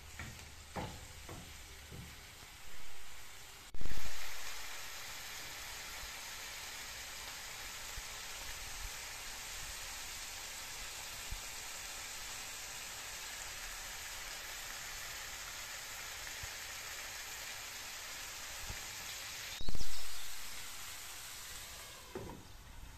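Minced-meat tomato sauce sizzling steadily in a frying pan, with a wooden spatula scraping the pan in the first couple of seconds. Twice, a sudden loud rush of sound fades away within about a second.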